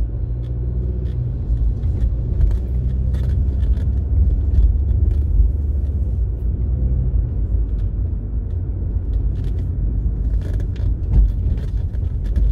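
Car driving at moderate speed, heard from inside the cabin: a steady low rumble of engine and tyres on the road, with scattered light clicks and rattles.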